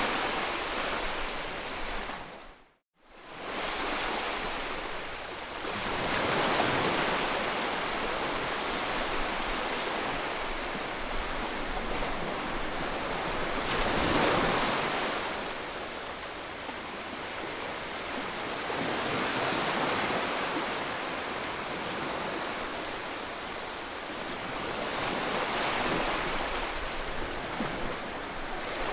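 Sea waves breaking on the shore, the surf swelling and fading about every six seconds. The sound cuts out briefly about three seconds in.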